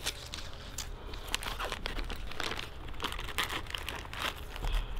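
Plastic packaging crinkling irregularly as a catch can mounting bracket is unwrapped by hand.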